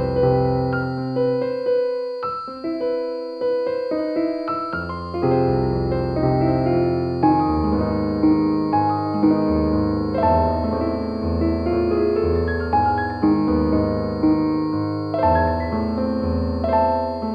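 Slow, relaxing solo piano music: single notes ring and fade over held bass notes. A faint steady high tone sits underneath.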